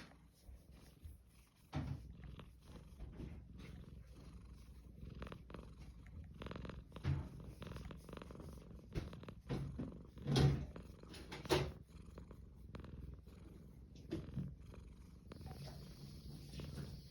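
Domestic cat purring steadily while its head is stroked, a continuous low rumbling purr. A few louder brief scuffs cut in, the loudest about ten and a half seconds in.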